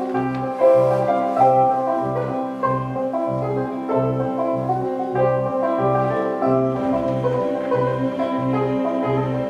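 Instrumental music: piano-led chords over a low note that repeats at a steady pulse, a little less than twice a second.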